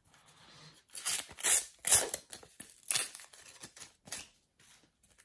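A Panini paper sticker packet being torn open by hand: several short ripping strokes about half a second to a second apart, the loudest about two seconds in, followed by softer rustling as the stickers are pulled out.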